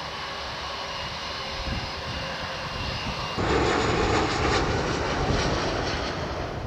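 Jet engine noise from an Airbus A380's four Engine Alliance GP7270 turbofans: a steady rush with faint whining tones. About three and a half seconds in it steps up suddenly to a louder, fuller rush.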